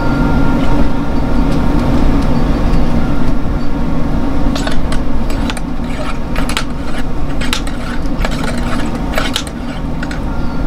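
Light metallic clicks and rattles from about halfway in, from handling the action of a muzzleloader pistol, over a steady low rumble.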